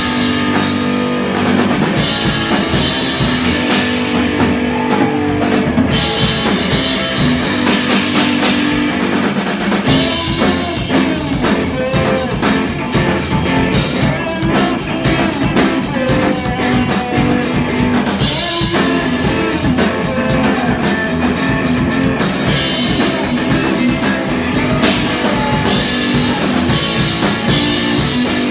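Live rock band playing loudly, with drum kit, electric guitar and bass, heard through a handheld camera's microphone in the room.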